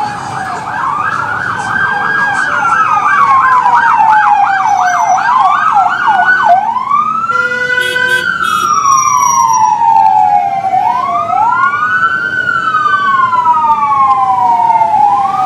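Emergency vehicle siren, loud, going from a slow rising and falling wail into a fast yelp of about four sweeps a second, then back to the wail. A short harsh blast sounds about halfway through, and near the end a second wail overlaps the first.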